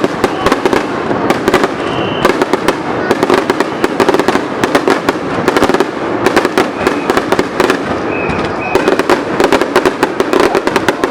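Aerial fireworks going off in a rapid, nearly continuous barrage of bangs and crackles, packed tightest in the middle and over the last few seconds.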